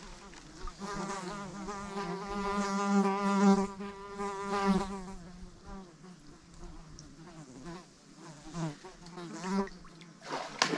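A flying insect buzzing close to the microphone: a droning hum that swells louder and wavers between about one and five seconds in, then fades to a faint buzz.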